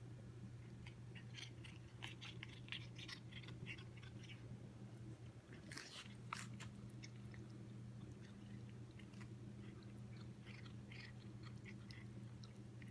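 A cat crunching dry treats: runs of small crisp crunches, loudest about six seconds in, over a steady low hum.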